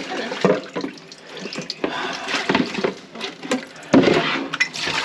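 Water sloshing and splashing in a blocked kitchen sink, uneven, with a few short knocks and a louder surge about four seconds in.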